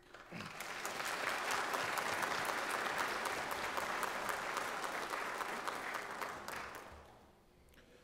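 Church congregation applauding: a dense patter of hand claps that swells in the first second, holds steady and dies away about seven seconds in.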